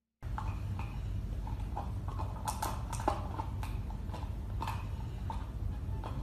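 Golden retriever puppy scrabbling and knocking at a wooden furniture base: irregular sharp clicks and knocks, busiest about two to three seconds in, over a low steady rumble.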